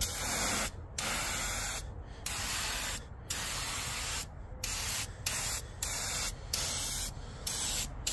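Aerosol 'turbo' spray paint can spraying in a series of short hissing bursts, about one a second, with brief pauses between.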